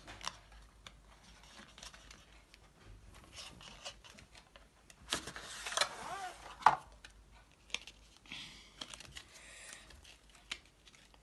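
A cardboard trading-card deck box being opened and handled: faint rustling, scraping and small taps of card and cardboard, with a busier stretch and one sharp tap about two-thirds of the way through.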